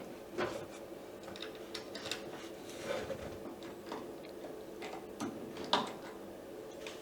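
Scattered light clicks and taps of the metal clamp being handled and set back over the CO2 laser tube, the sharpest a little before the end, over a faint steady hum.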